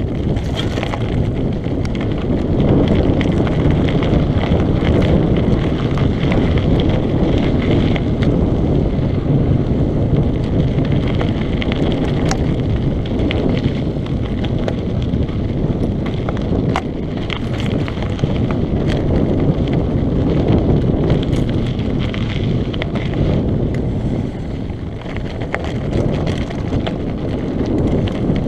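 Heavy wind buffeting on an action-camera microphone as a mountain bike descends a dirt singletrack at speed. Under it run the tyres' rumble over gravel and frequent short clicks and rattles from the bike over the rough ground.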